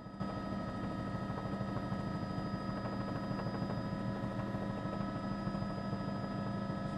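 Steady mechanical drone holding several unchanging tones, running evenly throughout.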